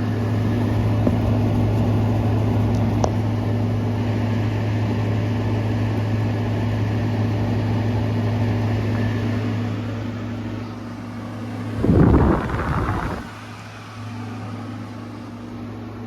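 2019 Frigidaire 5,000 BTU window air conditioner running with a steady compressor hum and fan noise. The sound drops off about ten seconds in, then a loud, roughly one-second rattling shudder comes about twelve seconds in as the unit shuts down, leaving a fainter hum.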